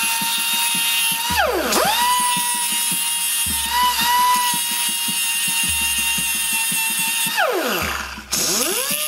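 Power grinder with a thick cutoff wheel sharpening a steel hammer knife (flail) mower blade along its bevel. The motor gives a steady high whine that twice sags sharply in pitch and climbs back.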